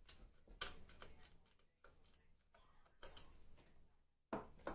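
Small screwdriver working at the screws of a plastic wall-mounted heating receiver unit: faint scratchy clicks and scrapes, with a sharper click about half a second in and a louder one near the end.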